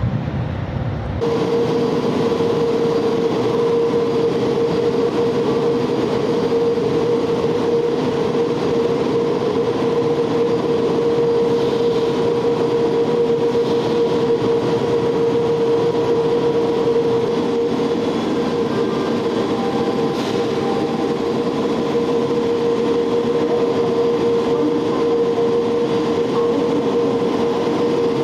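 Gas-turbine trainset's turbine running while the train stands at the platform, a steady whine over a rushing noise with no change in pitch.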